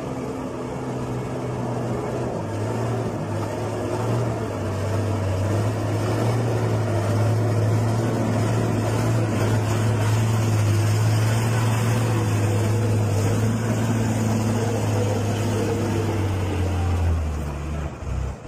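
Dump truck's diesel engine running under load as the truck drives through deep mud. It makes a steady low drone that drops in pitch near the end.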